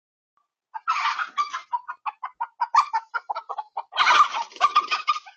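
Chickens clucking: a quick series of short clucks starting about a second in, with louder, harsher calls at the start and again about four seconds in.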